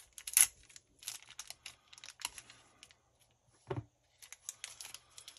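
Small clear plastic bag crinkling as it is pulled open by hand, a run of quick crackles.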